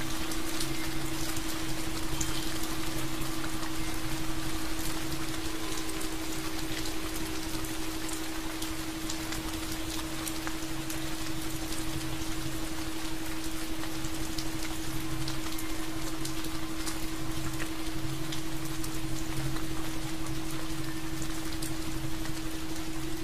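Steady rain falling, many small drops ticking over an even hiss, with a steady low hum underneath and a lower tone that fades in and out.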